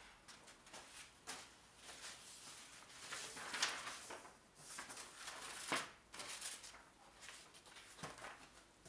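Paper rustling and flapping as the pages of an old printed manual are turned and a large fold-out sheet is opened out, in a string of irregular soft rustles, loudest about three and a half and five and a half seconds in.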